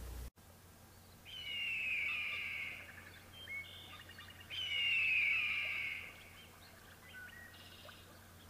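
A bird of prey screaming twice, each a long, harsh, downward-gliding scream of about a second and a half, with a few short chirps between and after.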